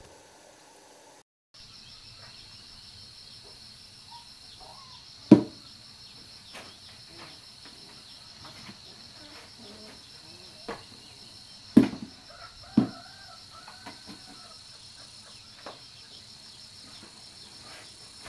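Steady, high-pitched chorus of insects, broken by three sharp knocks: one about five seconds in and two close together about twelve seconds in.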